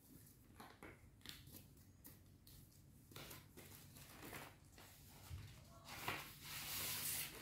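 Handling of a brown paper envelope with a string-and-button closure: soft, scattered scrapes and ticks as the string is unwound, then a louder papery slide and rustle about six seconds in as a card folder is pulled out of the envelope.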